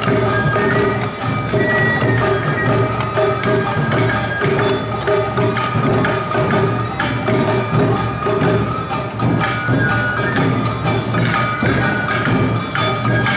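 Live awa odori narimono band playing: high held bamboo-flute notes over clanging kane gongs and drums in a steady, driving rhythm.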